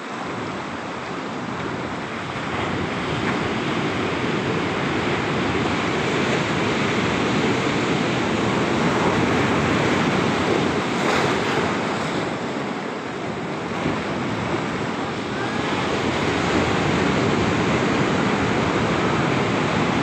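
Ocean surf breaking and washing white over rocks at the shoreline: a continuous rush that grows louder over the first few seconds and eases briefly a little past the middle.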